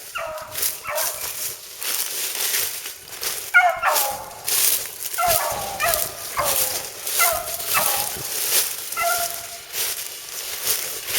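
Dog barking repeatedly at a squirrel up a tree, about one short bark a second.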